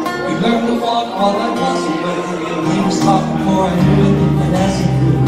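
Two acoustic guitars playing together live, with lower notes coming in more strongly about three seconds in.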